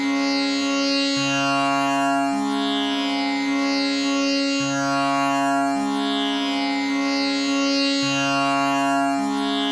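Tanpura drone tuned to C sharp: its strings plucked one after another in a steady repeating cycle, a new low note about every second, each ringing on under a continuous buzzing shimmer of overtones.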